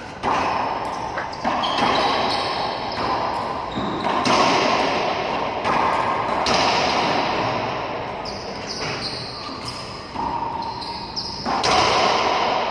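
Racquetball rally: the ball repeatedly cracking off racquets and the court walls, each hit ringing with the echo of the enclosed court.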